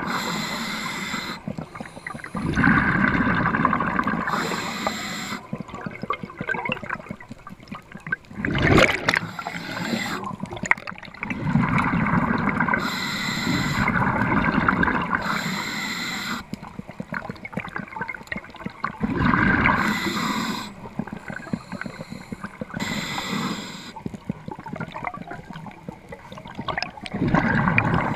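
Muffled underwater rushing and gurgling water noise on a diver's camera, swelling and fading as the diver moves, with a single sharp knock about nine seconds in.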